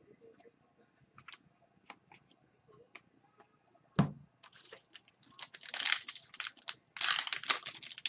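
Faint clicks of trading cards being handled, a single thump about four seconds in, then the loud crinkling and tearing of a hockey card pack wrapper being ripped open.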